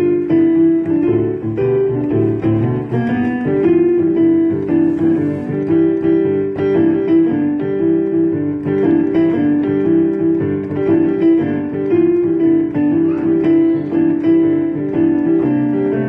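Piano played: a continuous flow of overlapping notes and chords, mostly in the middle range.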